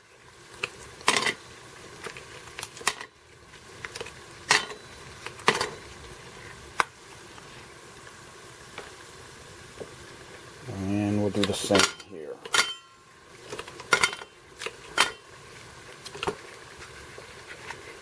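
Ice cubes clinking and knocking as they are dropped one at a time into stainless steel tumblers, with sharp separate clicks every second or two. A brief low hum comes about two-thirds of the way in, followed by a short rattle.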